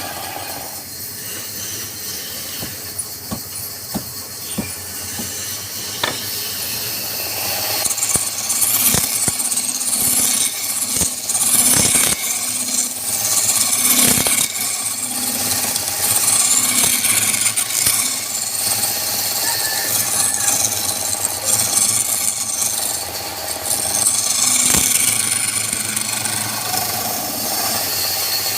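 Wood spinning on a lathe being worked with a turning tool: a continuous scraping rasp with several sharp knocks along the way.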